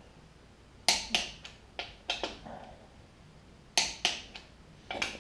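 Click-type torque wrench on a small-block Chevy's main bearing cap bolts, giving several sharp metallic clicks, mostly in close pairs, as the bolts reach their set torque of 70 ft-lb.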